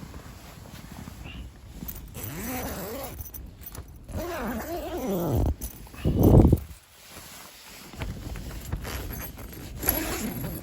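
A man's wordless groaning vocal sounds, falling in pitch, with rustling of sleeping gear and fabric, and one loud muffled knock about six seconds in.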